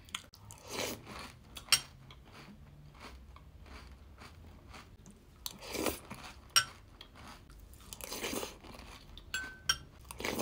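Close-up chewing and crunching of a mouthful of sugary cereal in milk, with a few sharp clicks of a metal spoon against a ceramic bowl.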